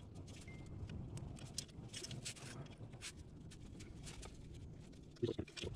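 Faint, irregular light clicks and taps of a 4 mm Allen key working the Haldex coupling pump's bolts loose by hand, with a few louder knocks about five seconds in.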